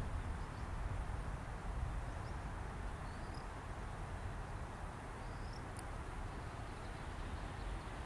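Wind on the microphone, a steady low rumble, with two faint, short, rising high bird chirps about three seconds and five and a half seconds in.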